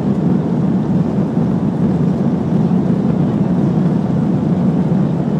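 Airbus A320 airliner heard from a seat over the wing: the engines and airflow make a loud, steady low rumble around the takeoff.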